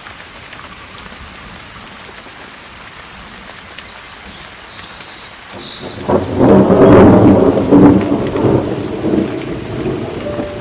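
Steady rain falling, then about six seconds in a loud, deep rumble of thunder swells up, peaks and rolls slowly away while the rain keeps on.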